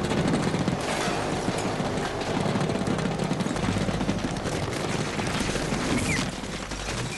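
Film soundtrack of a sustained firefight: rapid automatic gunfire and explosions, with bullets striking and shattering a window.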